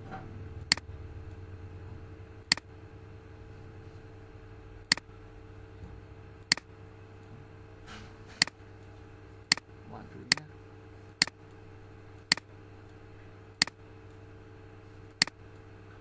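Computer mouse clicking: about eleven sharp single clicks at irregular intervals, one to two seconds apart, over a steady low electrical hum.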